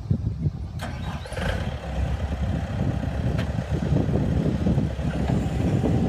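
2008 Bobcat S220 skid steer's diesel engine running at idle, a steady low rumble that grows a little louder over the seconds.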